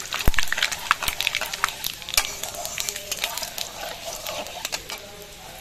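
Panch phoron spices crackling and spitting in hot mustard oil, with bay leaves and dried red chillies, as a spatula stirs them around a metal karahi; a sharp knock about a quarter second in. The crackling thins out toward the end.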